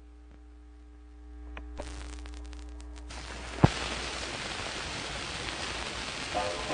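Surface noise from the run-in of a 1928 Victor shellac record: a faint low hum, then crackle from about two seconds in, turning to a steady hiss with one sharp loud click. Charango and guitar notes begin near the end.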